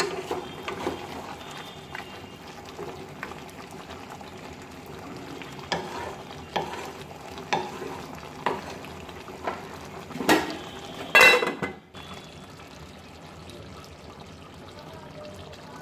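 Spiced beef sizzling in a metal pot as it is braised (kosha) in its own juices, with a spatula stirring and scraping the pan, strokes coming about once a second. Two louder scrapes come about two-thirds of the way through, after which the sizzle goes on alone, a little quieter.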